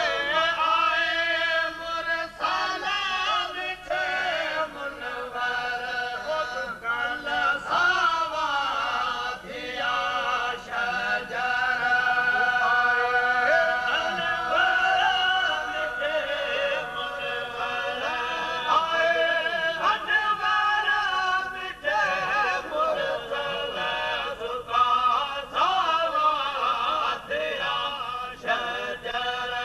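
Men singing devotional mawlid (moulood) verses, melodic lines with long held notes.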